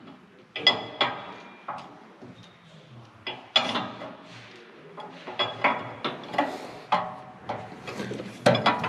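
Scattered sharp metallic clinks and taps, some ringing briefly, as hand tools and metal parts knock against the diesel engine's fuel-filter housing while the primary fuel filter is loosened.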